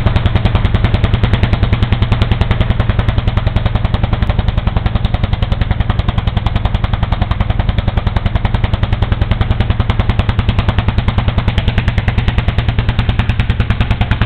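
1950 Lanz Bulldog model P's single horizontal-cylinder hot-bulb two-stroke engine running steadily, a fast even train of exhaust beats, while it drives a dynamometer brake through its power take-off.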